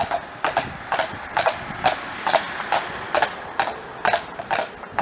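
Horse's hooves clip-clopping at a steady walk on an asphalt road, about two strikes a second, as it pulls a carriage.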